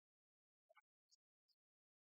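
Near silence, broken only by a few faint, very short blips.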